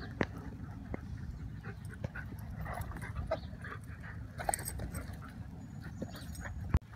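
Two dogs play-wrestling, with panting, whines and short grunting vocal noises over a steady low rumble. A sharp click comes near the end.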